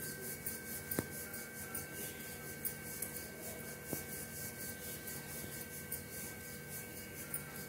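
Wooden rolling pin rolling out a stuffed paneer paratha on a floured board: a rhythmic back-and-forth rubbing, with a couple of light knocks.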